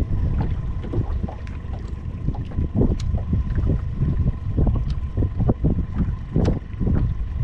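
Wind buffeting the microphone, with small waves slapping irregularly against the boat's hull.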